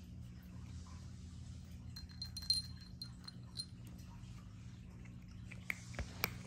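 Light clinks and taps from a small handheld treat container with a metal lid, one ringing briefly about two and a half seconds in, with a few more sharp taps near the end, over a steady low hum.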